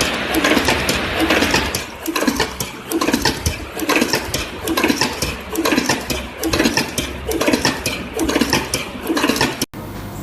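A factory machine working in a steady cycle, with a heavy clattering stroke a little more than once a second and quick metallic clinks and clicks between the strokes. The rhythm stops abruptly near the end.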